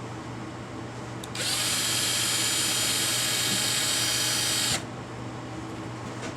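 Power drill spinning a model-train wheel on its axle against a cleaning pad. It makes a steady high whir with scrubbing hiss that starts about one and a half seconds in and stops before five seconds, with a low steady hum underneath.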